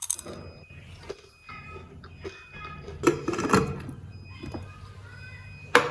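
Soft background music with a few light knocks and clinks of dishes or utensils, a cluster of them about halfway through.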